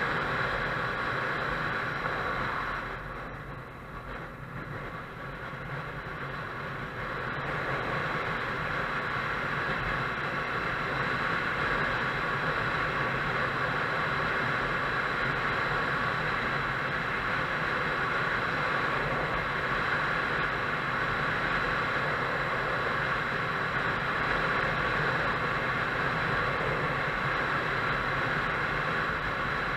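Motorcycle on the move: steady engine and wind-rush noise. It drops away for a few seconds about three seconds in, then builds back up and holds steady.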